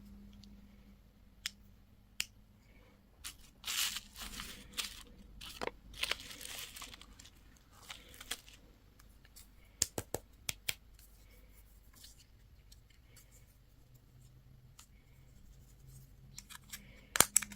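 Candy packaging being torn open and crinkled by hand: noisy rips about four seconds in and again around six to seven seconds, a quick run of sharp clicks around ten seconds, and more clicks near the end.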